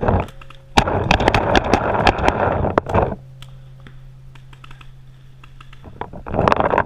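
Rapid paintball marker fire: a dense run of quick pops lasting about two seconds, then another short burst near the end.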